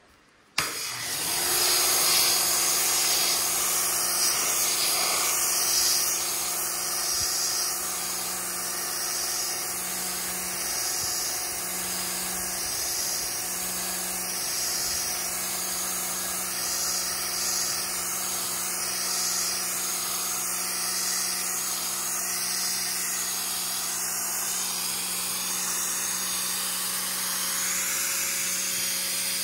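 Pressure washer spraying: the pump's motor hums steadily under the hiss of the high-pressure water jet hitting the canoe's hull. The spray starts abruptly about half a second in and then runs steadily.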